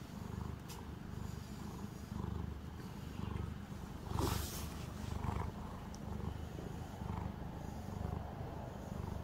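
Calico cat purring steadily in low, rhythmic pulses, with a short rustle about four seconds in.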